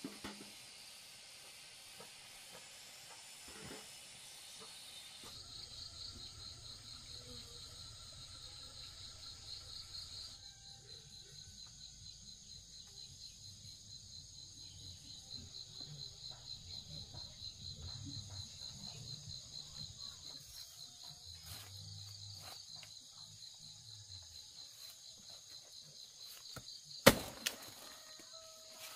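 Insects trilling steadily in a fast-pulsing chirr, preceded for the first few seconds by a higher steady hiss. A single sharp snap sounds near the end.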